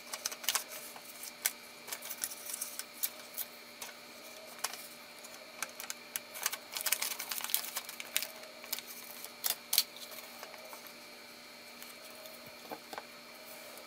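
Irregular clicks and light rustling from handling a plastic paper border punch and a sheet of punched paper card, busiest in a quick cluster about halfway through. A faint steady hum runs underneath.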